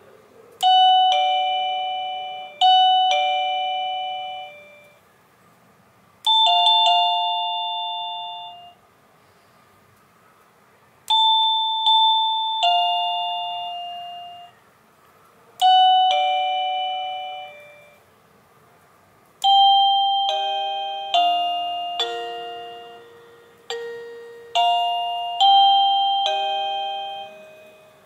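IntendVision wireless doorbell's plug-in receiver playing a run of different electronic chime tunes. First a two-note ding-dong twice, then other two- and three-note chimes, and from about two-thirds of the way in a longer tune of many quick notes. Each note strikes and fades away.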